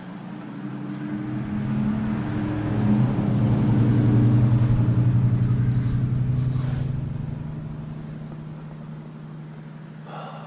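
A motor vehicle driving past with a low engine hum, growing louder to a peak about four seconds in and then fading away.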